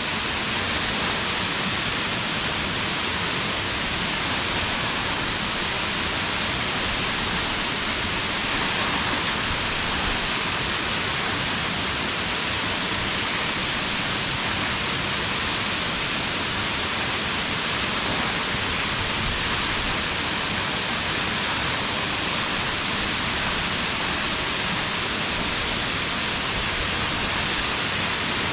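Waterfall: a steady, unbroken rush of falling water, strongest in the hiss range, with no change in level.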